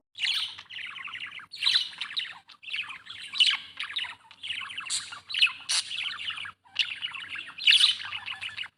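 Budgerigar chattering with rapid chirps, in several bursts separated by short breaks, stopping suddenly near the end.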